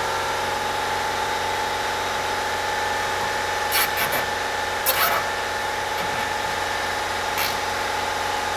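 Steady machine hum in a car repair workshop, with three short metallic knocks or clicks about four, five and seven and a half seconds in.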